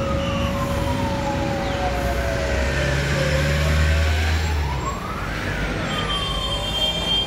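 A siren wailing in slow sweeps: its pitch falls for about three seconds, climbs again to a peak a little past five seconds, then falls once more. Street traffic noise runs underneath, with a low engine hum swelling near the middle.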